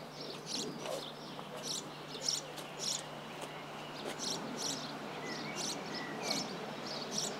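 Small songbirds chirping: many short, high chirps, roughly one or two a second, with a few soft gliding notes about five seconds in.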